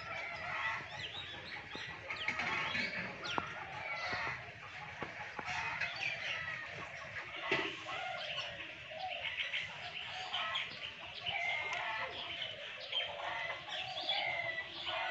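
A chorus of birds chirping and calling, many short chirps overlapping without a break.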